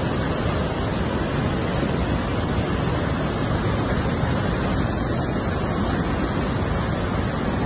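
Violent storm wind with torrential rain, a steady, dense rush of noise that does not let up.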